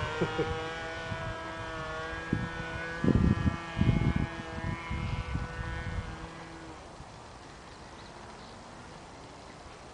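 Small model airplane engine droning in flight, its pitch wavering slightly as it fades away into the distance over about seven seconds. A few low rumbles hit the microphone around three to four seconds in.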